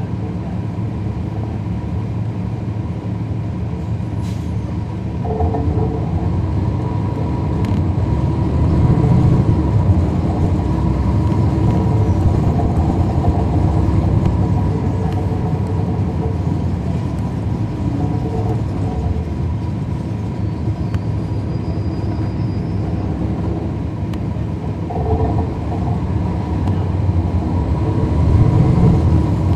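Interior of a 2011 NABI 40-SFW transit bus heard from the back seats: its Cummins ISL9 diesel and ZF Ecolife six-speed automatic running under way, with the HVAC on. The engine sound swells about a quarter of the way in and again near the end.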